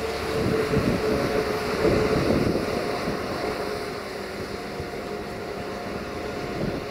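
Diesel multiple unit running while stopped at the platform: a steady mechanical hum with two held tones, over wind rumbling on the microphone.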